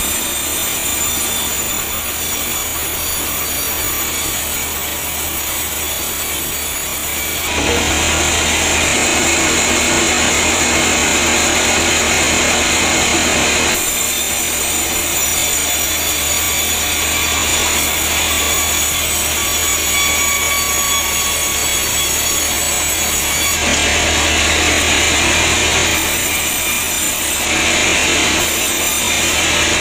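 Vertical band sawmill blade cutting through logs and timber: a steady, loud sawing noise with a low motor hum beneath it. The tone and level jump abruptly a few times along the way, getting louder after the first several seconds.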